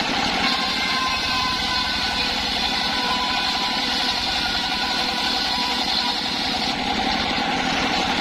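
Engine-driven circular saw rig running steadily, its blade adding a faint wavering whine over the engine's drone.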